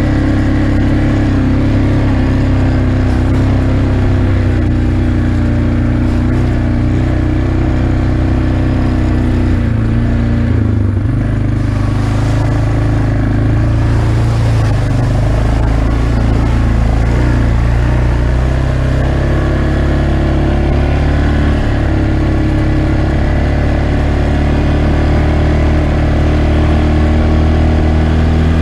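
Yamaha Grizzly ATV's single-cylinder engine running steadily on a dirt trail, easing off about ten seconds in as the quad slows, then picking back up as it gathers speed again.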